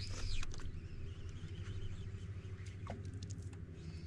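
Bow-mounted trolling motor humming steadily, with a few faint clicks and two short high squeaks, one right at the start and one falling in pitch about three seconds in.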